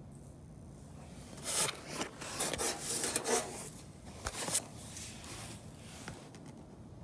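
Rubbing and scraping handling noise in several short bursts from about a second and a half to four and a half seconds in, from the handheld camera being moved over the aileron.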